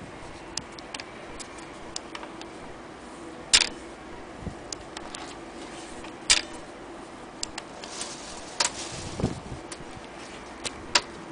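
Scattered sharp metal clicks and taps from the presser foot and side lever of a Frister & Rossmann sewing machine being handled, with a few louder clicks spaced a couple of seconds apart and a dull knock near the end.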